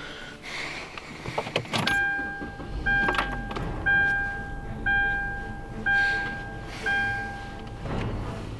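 Keys jangling and clicking, then a car's electronic warning chime dinging about once a second for about six seconds, with a low rumble underneath.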